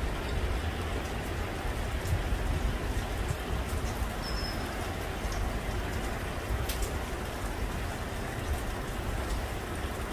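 Steady rain falling on leaves and wet pavement, with the occasional sharp tick of a single drop.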